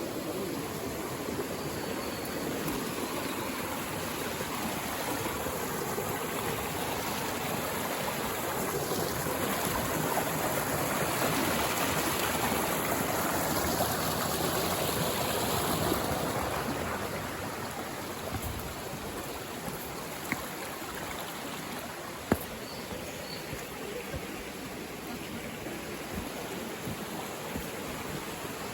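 Mountain stream water rushing steadily over rocks, swelling louder for several seconds in the middle and then easing back down. A single sharp click stands out about two-thirds of the way through.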